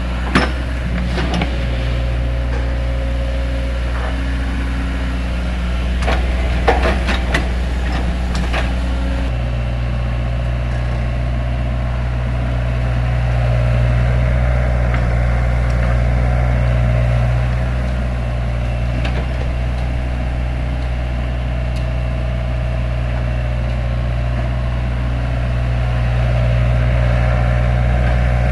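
A Tatsuo excavator's diesel engine running steadily, with a few sharp knocks and clatter over the first several seconds. From about nine seconds in there is only the steady engine note, which swells slightly twice.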